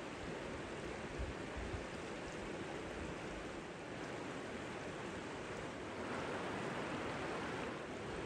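Shallow river running over rocks and cobbles: a steady rush of water, a little louder about six seconds in.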